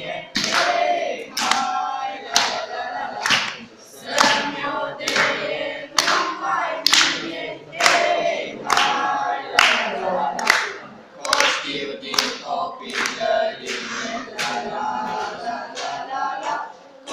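A group of people singing a Romanian song together, with hand claps on a steady beat of about one clap a second.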